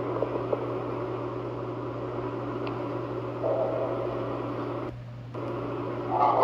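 A steady low droning hum with hiss, shown as coming from a hole in dry ground. A faint higher moaning tone joins it for about a second and a half past the middle, the hum dips out briefly, and a louder wavering sound rises at the very end.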